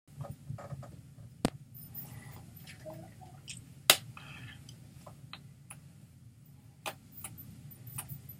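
Hands slapping and brushing against each other while signing: four sharp claps, the loudest about four seconds in, with faint small rustles between them over a low steady hum.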